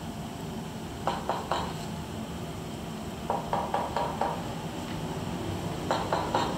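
Three runs of quick, sharp knocks or taps, about four or five a second: three, then five, then four near the end, over a steady background hum.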